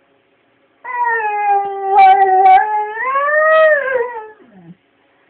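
A young Labrador–collie–husky mix dog howling: one long howl of about four seconds. The pitch dips slightly, swells upward, then slides down as it trails off.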